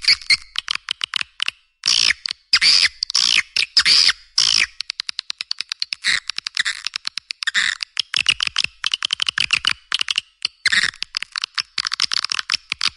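Swiftlet calling-sound recording used to lure edible-nest swiftlets into a swiftlet house: rapid trains of sharp clicks mixed with twittering chirps, repeating without pause and with no low end.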